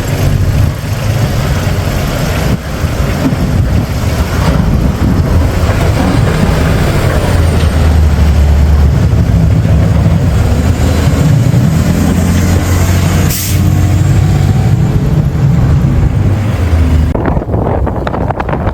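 A heavy vehicle's engine running loud and low, its pitch shifting now and then over a steady rushing noise. The sound changes abruptly near the end.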